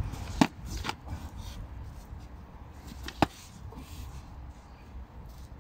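Foam-padded practice swords striking in a sparring bout: a sharp smack about half a second in, a lighter one just after, and another sharp smack about three seconds in.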